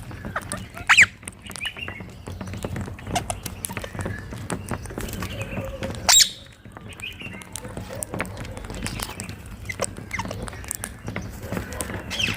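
Rose-ringed parakeets calling: two loud, shrill screeches about a second and six seconds in, with softer chirps and squawks between them.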